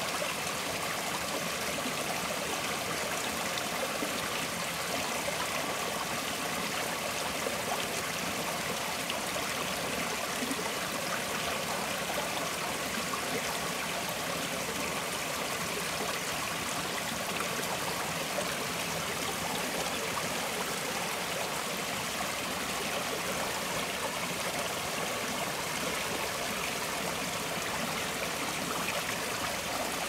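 Gentle forest stream flowing, a steady rush of water with fine trickling and gurgling, unchanging throughout.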